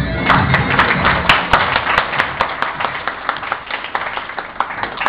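Audience applauding, the clapping dense at first and thinning out and fading toward the end.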